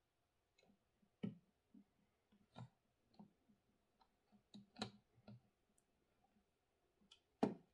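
Faint, irregular clicks and taps of a hand screwdriver turning small screws into an airsoft replica's receiver, with the part shifting against the tabletop; a dozen or so scattered ticks, the loudest near the end.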